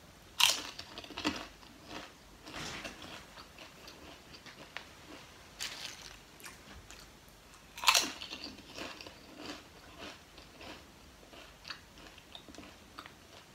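Lay's potato chips being bitten and chewed close to the microphone: a loud crisp crunch about half a second in and another about eight seconds in, each followed by softer crunchy chewing.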